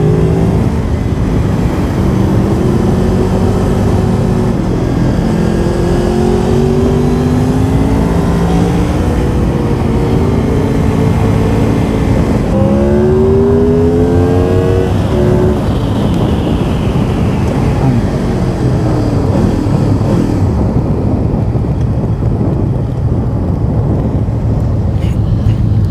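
Motorcycle engine running while riding along a winding road, its pitch rising and falling with the throttle and climbing sharply under acceleration about halfway through, over steady wind and road noise.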